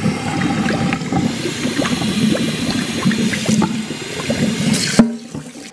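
Kitchen sink sprayer running water through a removed P-trap to flush out sludge, with water splashing and spattering into a stainless steel sink. The spray stops abruptly with a click about five seconds in.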